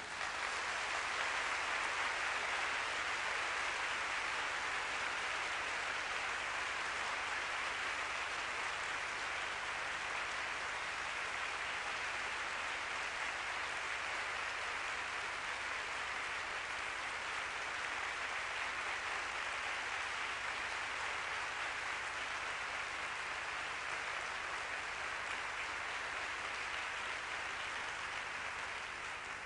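Audience applauding, a long steady ovation that dies away near the end.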